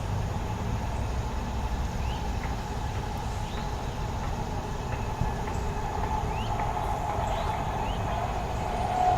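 Steady road-traffic rumble that swells louder near the end, with short rising chirps from small birds scattered through it.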